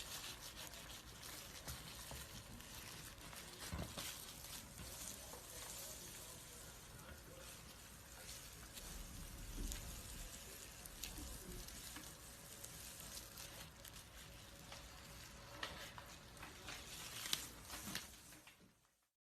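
A snake shedding its skin: dry crackling and rustling as the old skin peels and rubs, with scattered sharper clicks, fading out near the end.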